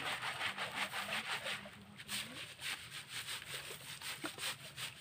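Rhythmic hand scraping or rubbing, about five quick strokes a second. It is strongest in the first two seconds and grows weaker and more irregular after that.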